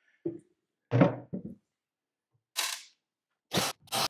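Knocks and clunks as a cordless drill-driver is picked up and handled, followed near the end by short, sharp bursts of the drill-driver run against the dash panel's screws.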